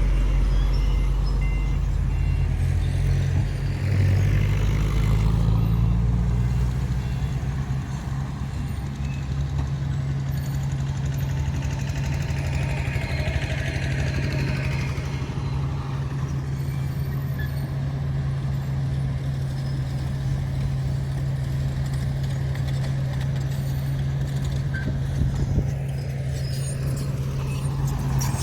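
Heavy diesel engine of earthmoving machinery running steadily with a deep low drone, briefly louder about four seconds in.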